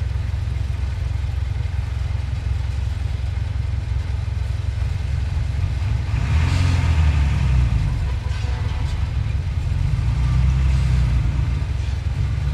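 Heavy earthmoving machine's diesel engine running under load, a steady low rumble that swells twice, about halfway through and again near the end.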